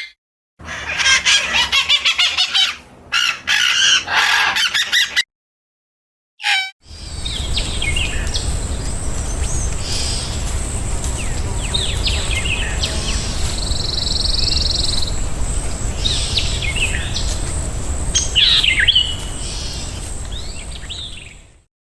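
Birds chirping and calling: a dense, busy run of calls in the first few seconds, then, after a brief cut to dead silence, scattered short chirps over a steady low background noise.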